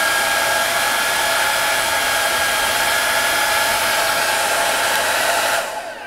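Rospec HD8812W folding hair dryer running on its second, hottest speed with heat after the cold-air button is released: a steady rush of air with a constant fan whine. Near the end it cuts off and the whine falls away as the fan runs down.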